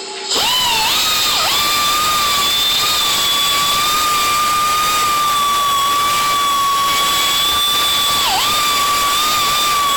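Electric power tool switching on about a third of a second in and running at speed with a steady high whine, dipping briefly in pitch a couple of times.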